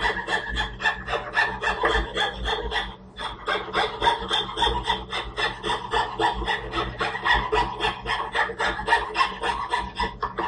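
Hand frame scroll saw (fretsaw) cutting through a thin wooden board, with quick, even rasping strokes about four a second. There is a brief pause about three seconds in.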